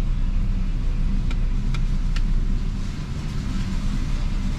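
Vehicle engine idling with a steady low rumble, with three faint clicks in the first half.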